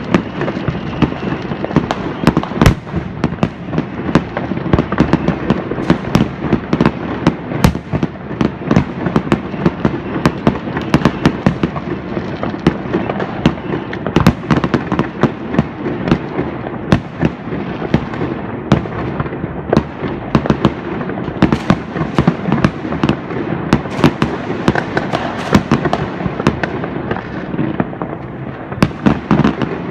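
New Year's Eve fireworks: a dense, continuous barrage of bangs, crackles and pops from many rockets and firecrackers at once, with no pause.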